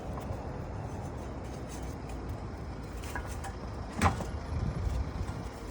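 Ratchet tie-down strap and its buckle being handled while it is fed through the gas-bottle mounting: a few light clicks about three seconds in, then a sharp knock just after four seconds, with some rustling handling after it. A steady low rumble runs underneath.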